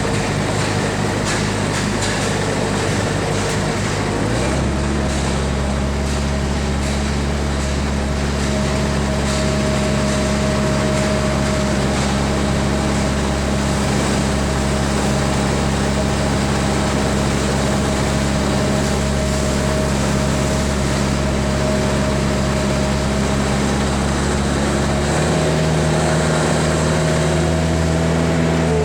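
Skid steer loader's engine running steadily, its pitch stepping to a new steady level about four and a half seconds in and again near the end.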